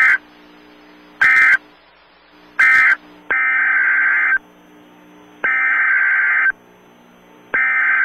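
NOAA Weather Radio Emergency Alert System data bursts: three short end-of-message bursts about a second and a half apart, then three longer header bursts of about a second each announcing the next message. Each is a harsh, steady digital warble with a faint hum between bursts.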